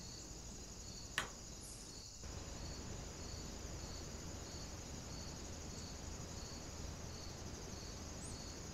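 Night insects, crickets, chirping: a short high chirp repeats about every three quarters of a second over a constant high trill and background hiss. A single sharp click sounds about a second in, and the low hiss gets louder a little after two seconds.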